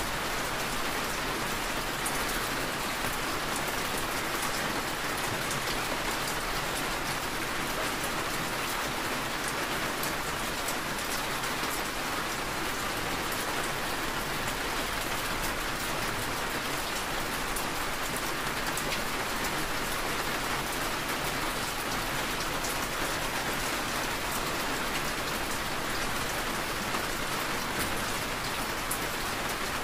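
Steady rain: an even, unbroken hiss of falling rain with scattered sharp drop ticks.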